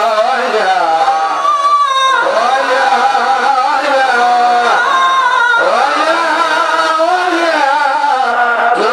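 Singing of a Swahili qaswida, an Islamic devotional song: a continuous winding melody with long held notes.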